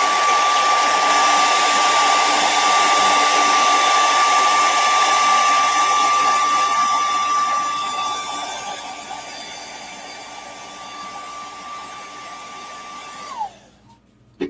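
Hand-held hair dryer blowing hot air onto a painted fishing lure to heat-set the paint: a steady motor whine over a rush of air. It gets quieter past the middle and winds down with a falling whine near the end.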